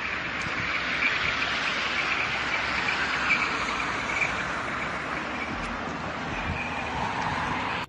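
Strong wind of a sandstorm blowing, a steady rushing hiss that cuts off suddenly at the end.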